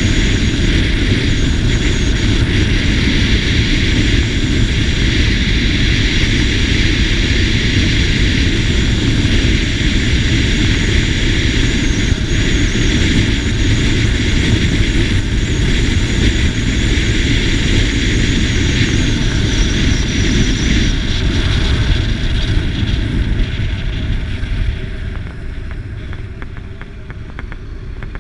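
Wind rushing over the microphone together with the engine and road noise of a SYM GTS 250 scooter riding at road speed. The noise eases off over the last several seconds.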